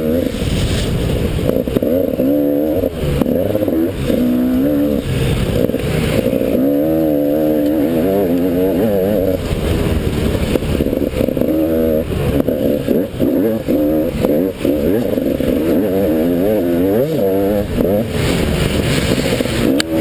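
Dirt bike engine ridden hard off-road, its pitch climbing and dropping over and over with the throttle.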